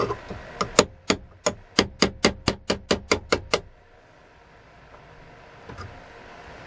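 Hammer tapping a metal punch held against the end of the old axe handle in the head's eye. About a dozen sharp metallic strikes come at roughly four a second and stop about three and a half seconds in.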